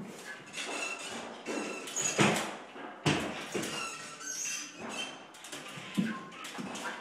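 Irregular short squeaks, scuffs and knocks from a drywall worker on stilts dabbing texture onto a ceiling with a handheld tool.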